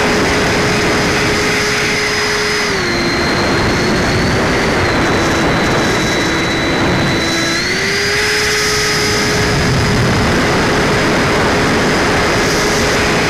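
Onboard sound of a 70 mm 12-blade electric ducted fan in flight: a steady, high electric whine over a loud rush of air. The pitch drops about three seconds in and climbs back near eight seconds as the throttle is eased and reopened.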